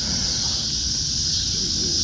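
Steady, high-pitched outdoor insect chorus, with a low rumble underneath.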